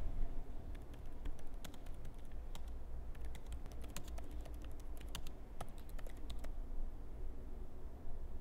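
Typing on a laptop keyboard: an irregular run of key clicks that stops about six and a half seconds in, over a low steady hum.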